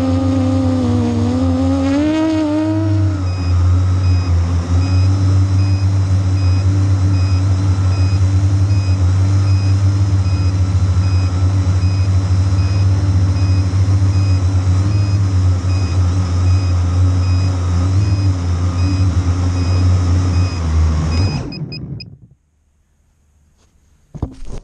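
Multirotor drone's electric motors and propellers whirring in flight, heard close from the drone's own camera; the pitch wavers for the first few seconds, then holds steady. About 21 seconds in the motors spin down and stop.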